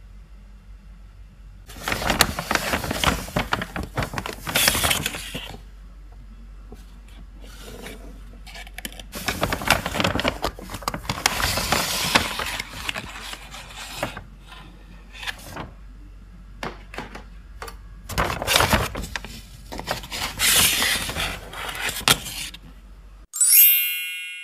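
Plastic lids of takeout food bowls being handled and pried off, crackling and scraping in three bouts with small clicks in between. About a second before the end, chiming jingle-bell music cuts in.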